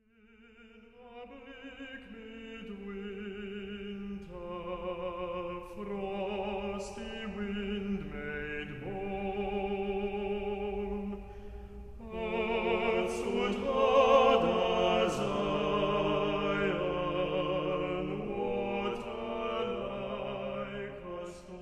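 Music with sung voices holding long notes with vibrato, choir- or opera-style, growing louder about halfway through.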